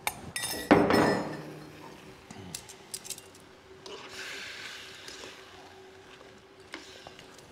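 A utensil clinking and knocking against a bowl several times in the first second, as leftover marinade is scraped out, with a few more clinks later on and a soft sizzle in between.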